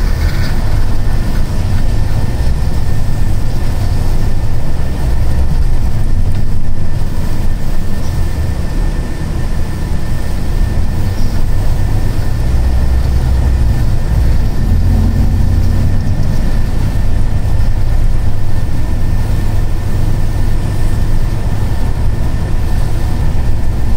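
Cabin noise of a Scania K310 coach on the move: a steady low diesel engine and road rumble, swelling a couple of times, with a thin steady whine above it.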